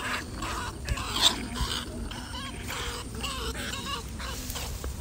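A rat caught in a trap, squealing and struggling in short repeated bursts, a few a second.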